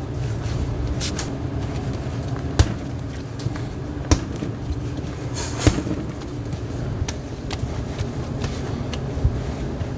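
Restaurant kitchen work: a steady low hum with occasional sharp knocks and clatter of tools and dishes, one of them followed by a brief hiss.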